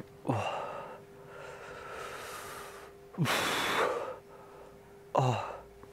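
A man gasping and blowing air out hard through his mouth, with three short groans that fall in pitch and a long breath of air sucked in between. He is reacting to the burn of a very hot chili pepper he has just eaten.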